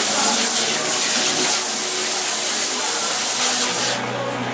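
Salon shampoo-bowl sprayer running, water hissing over the client's hair into the basin, shut off abruptly about four seconds in.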